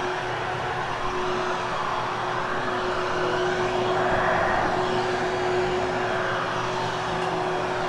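Hoover HushTone upright vacuum cleaner running over carpet: a steady motor hum with a constant whine and a rush of airflow, swelling a little around the middle.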